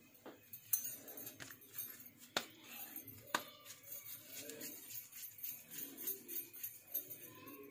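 Bangles on the cook's wrist jingling and clicking at irregular moments while her hands shape a ball of dough, with a few sharper clinks standing out.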